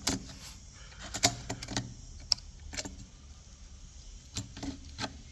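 Irregular sharp clicks and light rattling of small laptop parts being handled as the cooling fan's cable connector is unplugged from the heatsink assembly.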